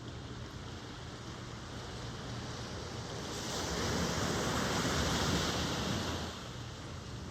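Ocean surf. A wave breaks and washes in a little past the middle, louder for about three seconds, over a steady background of surf.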